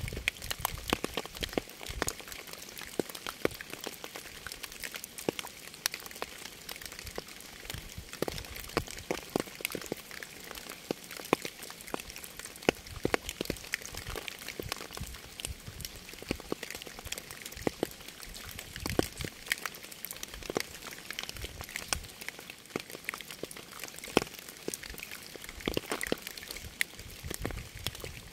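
Rain falling, with many separate drops striking close by over a steady hiss.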